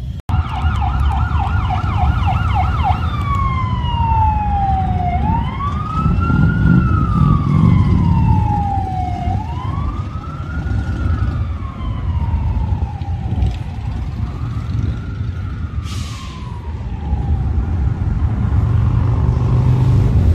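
An emergency-vehicle siren: a fast yelp of about four sweeps a second for the first few seconds, then a slow wail that falls and rises again about every four seconds and fades away. A low rumble of traffic runs underneath.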